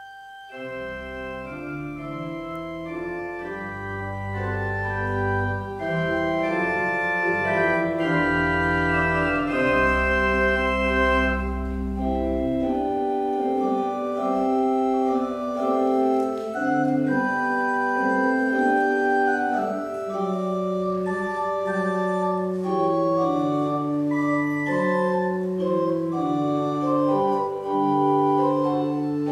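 Church organ playing sustained chords, with deep pedal bass notes under the first dozen seconds or so that then drop out while the manual chords carry on. The music grows louder over the first several seconds.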